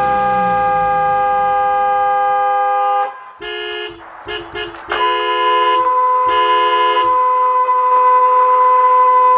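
Car horn honking: a long steady blast, then a few short toots, then another long blast held to the end.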